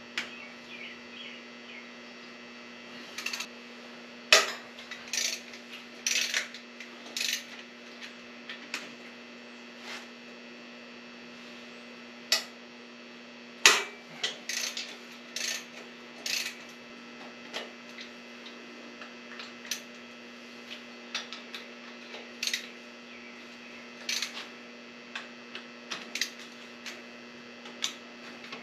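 Hand tools clinking and knocking on metal at the exhaust manifold bolts of a John Deere 3155 tractor engine: irregular sharp clanks, a few louder ones, over a steady electrical hum.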